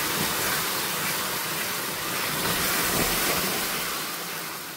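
Hot caramelised sugar being poured into hot milk, hissing and sizzling as it hits the milk and bubbles up. The steady hiss eases off near the end.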